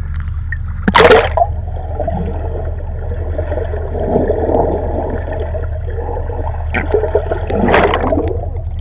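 Sea water heard from a camera dipping below the surface: a sharp splash about a second in, then muffled underwater gurgling and bubbling, and a second loud rush of bubbles near the end.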